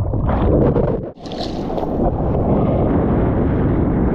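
Wind buffeting the microphone over the sound of rough storm surf, with a sudden brief dropout about a second in followed by a short hiss.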